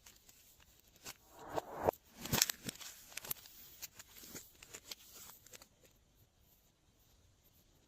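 Glossy slime being worked and mixed by hand, making sticky clicks and crackles. The sounds come thickest in the first few seconds, loudest about two seconds in, and thin out after about five and a half seconds.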